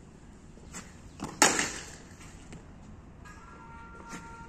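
Cricket ball struck by a bat: one sharp crack about a second and a half in, with a couple of lighter clicks just before it.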